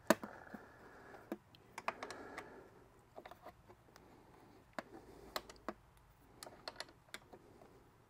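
Light, irregular metal clicks of an Allen key shifting and turning in a bolt head as the bolt is tightened, with one sharper click at the start.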